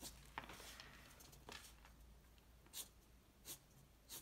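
Faint short strokes of a black pen on rice paper, drawing a cat's whiskers: about five or six quick strokes, roughly a second apart.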